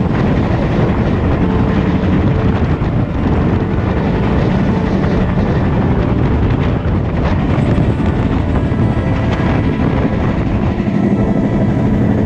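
Diesel passenger train running at speed along the track, a loud steady rumble of wheels on rails, heard from an open window of a moving carriage.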